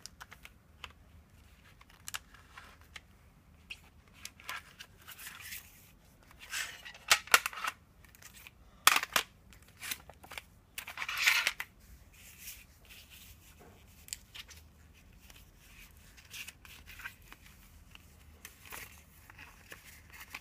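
Hands handling a CD single's packaging: scattered clicks and taps of plastic cases with short rustles of paper and plastic. The loudest sounds are a few sharp snaps around seven to nine seconds in and a longer rustle about eleven seconds in.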